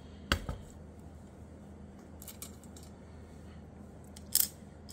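Small pieces of glass cutoffs clicking as they are handled and set in place on a work board: a single knock about a third of a second in, a few faint ticks, and a sharp cluster of clicks near the end.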